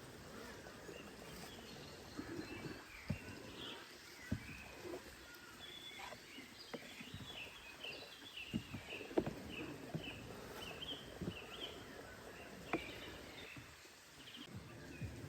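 A songbird singing a run of short, quickly repeated high chirps over a faint forest background. Scattered sharp clicks and knocks come in between, the loudest about nine seconds in.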